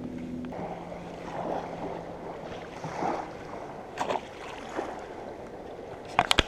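Steady rushing of river water, with a low steady hum that stops within the first three seconds. A quick run of sharp clicks comes near the end.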